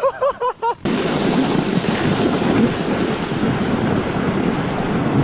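A brief laughing voice, then a steady rushing noise of wind on the microphone and a sled running over packed snow during a fast slide downhill. It cuts off suddenly at the end.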